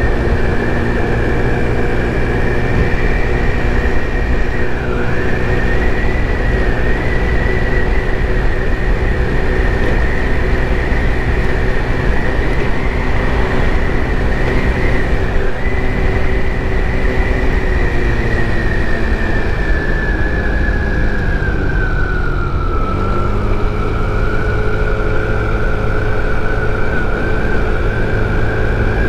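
A 50cc GY6 four-stroke scooter engine running at cruising speed, heard from the rider's seat with wind rushing over the microphone. A high whine rides on top of it, dipping briefly early on, then sagging about two-thirds through and climbing back as the scooter picks up speed again.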